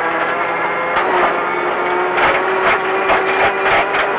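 Ford Fiesta R5 rally car's turbocharged four-cylinder engine pulling at steady revs, heard from inside the cabin. From about two seconds in, gravel and stones rattle against the car's underside.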